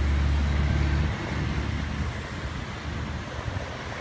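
Steady rushing of the flooded Snoqualmie River, heard as an even wash of noise. A low engine hum sits under it and stops abruptly about a second in.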